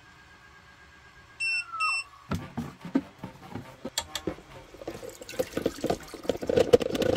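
Two short electronic beeps as a faint steady whine drops in pitch, then a run of clicks and clatter that grows busier toward the end.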